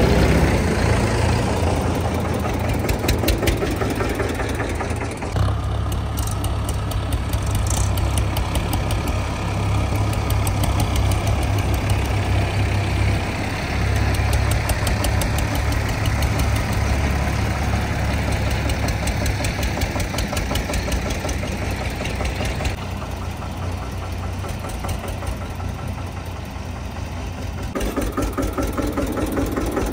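Diesel tractor engines running under heavy load in a tug-of-war, a steady low thrum of fast firing knocks. The sound changes abruptly a few times.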